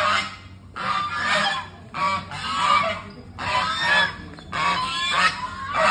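White domestic geese honking over and over, loud calls following each other about once a second.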